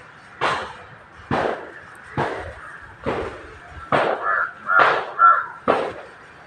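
Harsh bird calls repeated about once a second, coming faster and loudest around the middle, over a faint steady high tone.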